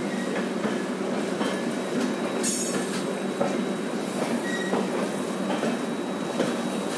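Shatabdi Express passenger coach pulling out of a station, heard from its open doorway: a steady rumble of wheels on the rails with scattered clicks over the rail joints. A brief high squeal comes about two and a half seconds in.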